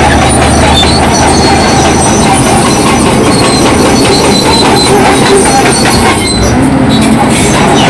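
Crawler bulldozer's diesel engine running steadily under load, with the steel tracks clanking and clattering as it works.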